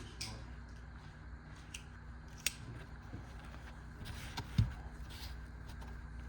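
Small hand tools being handled: scattered light clicks, a sharper click about two and a half seconds in and a dull knock a little past four and a half seconds.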